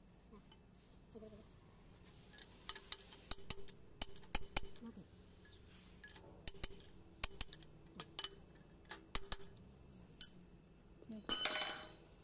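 Metal clinking and ringing taps from a long socket on an extension knocking against the steel of a Volvo D7E diesel cylinder head's injector bore, in small groups, with a denser metal rattle near the end.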